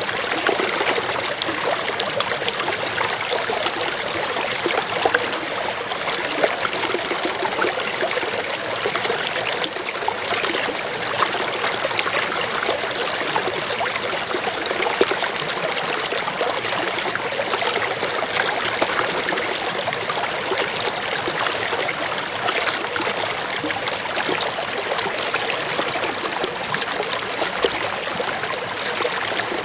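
Water flowing steadily, a continuous rushing hiss dotted with many small splashes.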